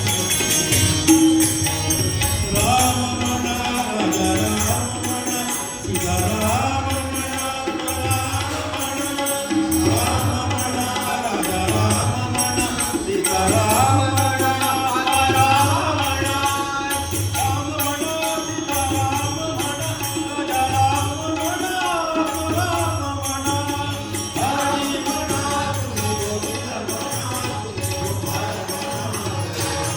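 Music: a song with a singing voice over a steady low beat.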